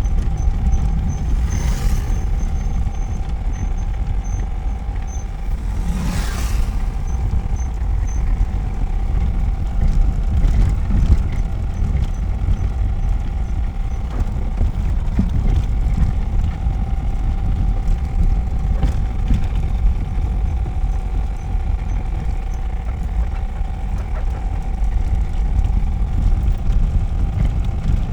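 Motor vehicle running with a steady low rumble and an even hum. Two brief hisses come about two and six seconds in.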